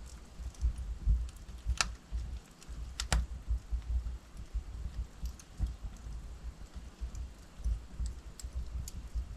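Log fire burning in a fireplace, crackling with irregular small pops over a low rumble. Two louder, sharper pops come about two and three seconds in.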